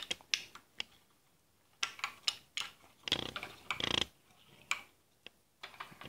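Small plastic toy construction vehicles clicking and knocking on a glass tabletop as they are moved and set down, in separate knocks with a short rattle about three seconds in.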